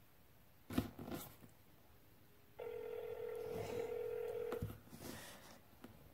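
Smartphone on speaker playing the ringback tone of an outgoing call: one steady ring about two seconds long, starting between two and three seconds in, while the call waits to be answered. Two short clicks come before it.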